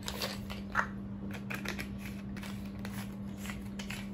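Many small colour pencils clicking and rattling against each other as they are tipped out of a pencil-shaped tube and handled: a run of light, irregular clicks.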